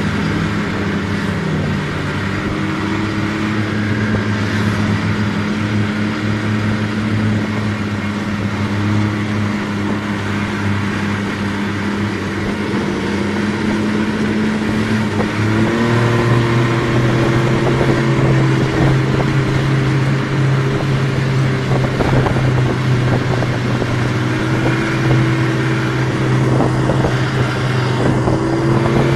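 Snowmobile engine running at a steady cruising speed, heard from the rider's seat, over a steady rushing noise. About halfway through, the engine note steps up and holds higher.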